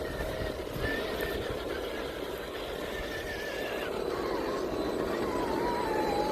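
Electric motor of a radio-controlled rock crawler whining, its pitch wavering and dropping partway through as the throttle changes, over a steady hiss.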